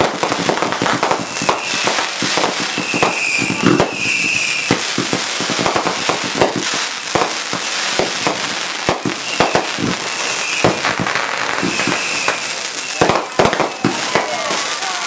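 Aerial firework shells going off in quick succession: many sharp bangs as shells launch and burst, over continuous crackling.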